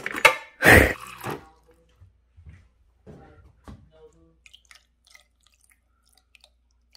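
Metal clatter of a kitchen knife dropped among other knives and utensils in a drawer, several sharp clanks in the first second or so. After that, only faint scattered ticks and crackles.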